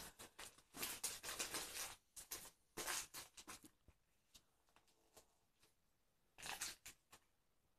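Paper being handled, crinkling and rustling in three short bursts with small clicks.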